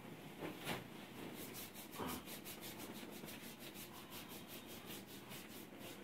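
Hands rubbing over bare skin on a patient's back: a few separate swishes, then from about a second and a half in a fast, even rubbing of about six strokes a second.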